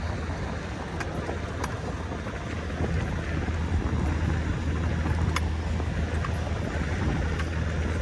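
A steady low engine drone with a few sharp light clicks over it.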